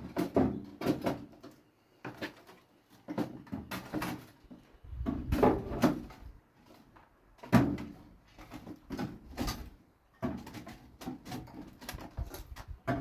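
Irregular metal clanks, knocks and scrapes as a burnt toaster is worked loose and dragged out of a microwave.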